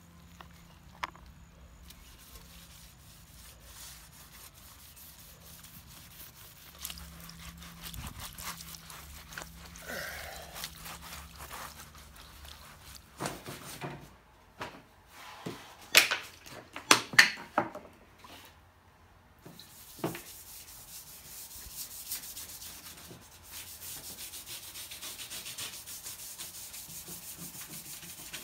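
A cloth wiping along the steel blade of a two-man crosscut saw lying on a wooden bench, with a few loud knocks and rattles about halfway through as the blade is handled. The last part is fast, even rubbing as the blade is wiped dry.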